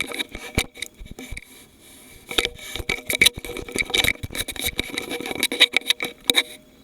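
A rapid, irregular run of sharp clicks and taps, thickest in the second half, over a faint steady tone.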